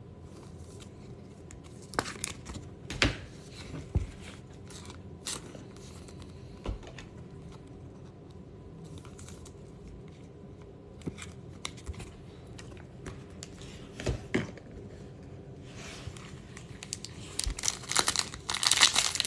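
Trading cards and packaging being handled: scattered taps and clicks, then from about three quarters of the way in, a card pack's wrapper being crinkled and torn open, growing louder near the end.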